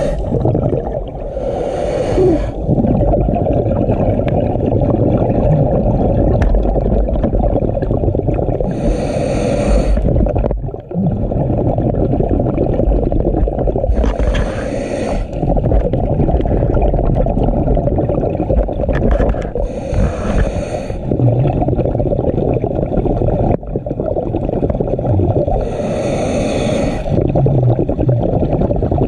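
A scuba diver's regulator breathing, with five bursts of exhaled bubbles about every five to six seconds, over a steady low rumble of water against the camera housing.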